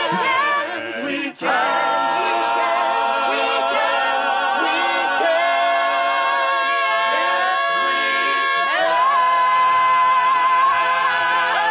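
A choir singing a cappella: several voices holding long notes with vibrato, with a brief break in the singing about a second in.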